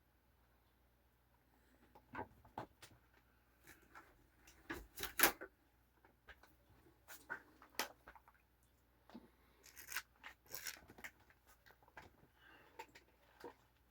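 Scattered light clicks, taps and knocks of objects being handled on a table, the loudest about five seconds in, with short rustling or tearing sounds around ten seconds in.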